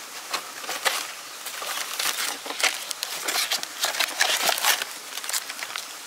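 Plastic food pouches and paper-and-plastic packaging crinkling and rustling as they are handled and opened, in irregular crackles that are busiest through the middle.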